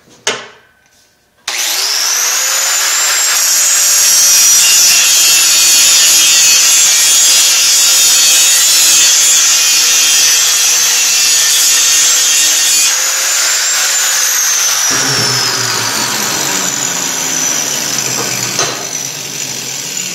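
DeWalt angle grinder started about a second and a half in, grinding steel on a wheel hub: a steady high whine over the rasp of the disc on metal, trimming a little more off so the hub fits the wheel evenly. About two-thirds through it is switched off and winds down with a falling whine.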